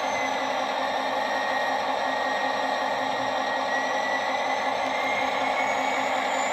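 HO scale model diesel locomotive sound decoder playing a diesel engine running through its small onboard speaker: a steady, hissy hum with a faint whine that falls and then rises in pitch.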